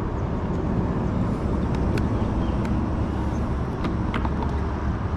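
Wind buffeting the microphone: a loud, steady, fluttering low rumble.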